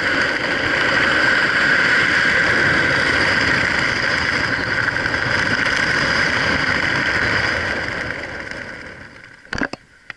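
Steady rush of airflow over the camera's microphone as a skydiver flies a parachute canopy in to land. It dies away over the last couple of seconds as the canopy slows for landing, then a few sharp knocks come at touchdown.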